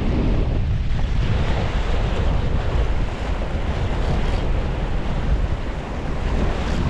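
Strong wind buffeting the microphone, a steady low rumble, with waves washing against the shore beneath it.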